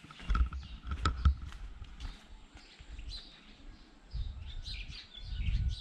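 Small birds chirping here and there in the background, with intermittent low rumbling noise on the camera microphone, loudest near the start and again toward the end.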